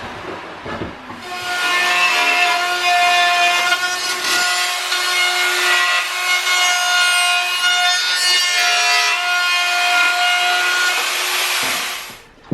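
Electric router running at high speed and cutting into a worn wooden stair tread: a steady high whine over the hiss of the bit chewing wood. It stops abruptly near the end.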